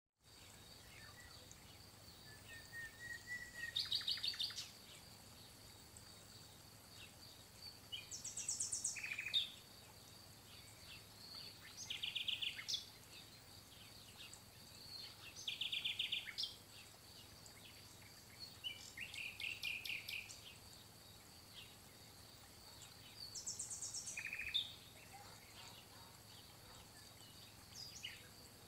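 A songbird singing short phrases of rapid trilled notes, repeated about every four seconds.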